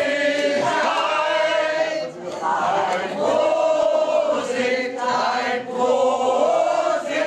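A group of people singing a song together in chorus, in held phrases with short breaks between them.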